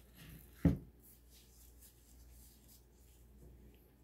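A single dull knock a little under a second in, then faint scraping and rustling as a gloved hand works through oatmeal cookie dough in a plastic mixing bowl.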